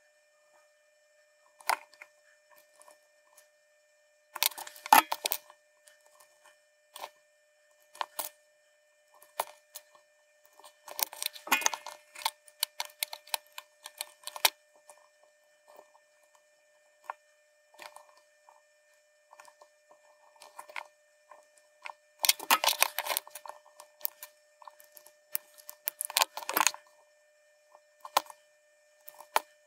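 Small clicks and rattles of wire-legged LEDs and a circuit board being handled: light metallic clicking and clinking in several short flurries, the busiest about three quarters of the way through, over a faint steady high tone.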